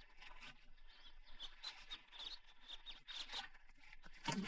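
Faint, short high chirps recurring every second or so, like birds chirping in the background ambience.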